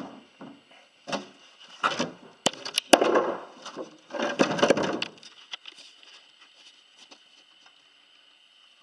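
Wooden cover panels being handled and fitted: a string of wood knocks and scrapes over the first five seconds, with a few sharp clicks in the middle of them, then only faint handling noise.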